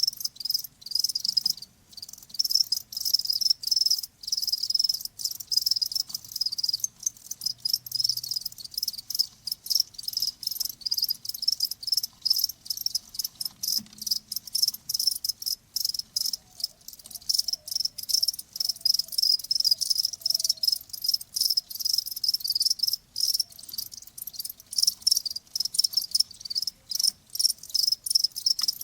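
Crickets chirping: high-pitched pulsed chirps in quick trains broken by short pauses.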